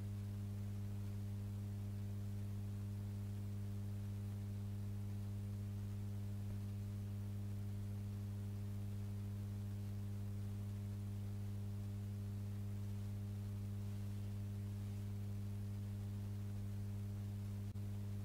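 Steady electrical mains hum, unchanging throughout, with one faint click near the end.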